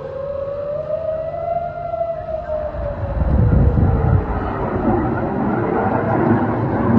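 Civil-defence air-raid siren wailing, its pitch slowly rising, falling and rising again. From about three seconds in, a loud low rumble runs under it.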